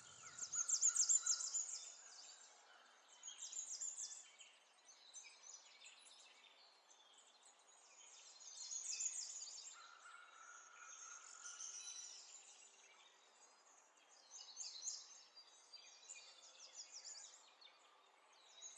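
Faint birdsong: clusters of quick, high chirps and trills coming and going, with a couple of longer whistled notes, the liveliest burst about a second in.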